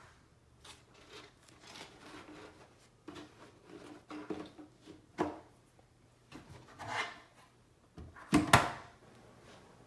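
Objects being handled: scattered light knocks, clicks and rubbing, with a brief scrape about seven seconds in and the loudest pair of knocks about eight and a half seconds in.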